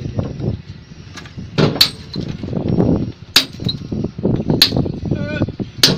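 Hammer blows on a steel chisel held against a precast concrete pile, chipping the concrete away to cut the pile: a handful of sharp, ringing metal strikes at irregular intervals, roughly one every second or so.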